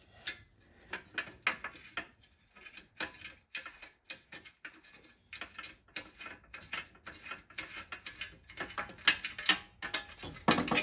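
Irregular clicks and light metallic knocks of hand tools and metal parts being handled on a mini bike, a little louder near the end.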